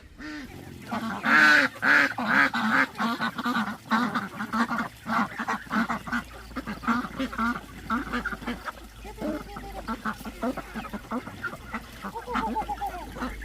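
Ducks quacking: a flock calling in many short, overlapping quacks, loudest and densest in the first few seconds.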